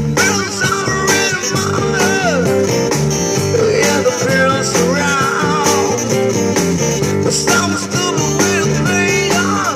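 Amplified busker band playing live, an electric guitar carrying a lead line with bent, gliding notes over a full band backing.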